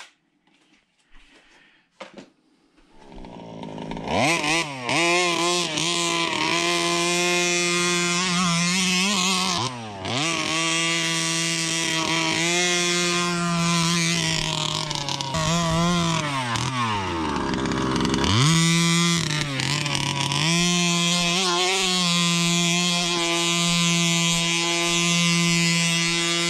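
Rovan Baja 5T's 32cc two-stroke petrol engine running, its pitch climbing and falling as it is revved, sinking low about two thirds of the way through and then picking up again. A few faint clicks come before it starts up about three seconds in.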